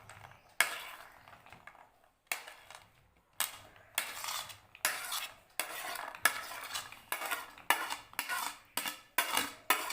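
A spoon scraping and clinking against a dish as chopped vegetables are tipped and pushed into a cooking container: a series of scrapes and knocks, coming quicker toward the end.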